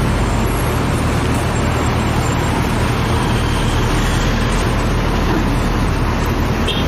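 Steady motor-vehicle noise, a truck engine running with road rumble: a low even hum under a broad hiss.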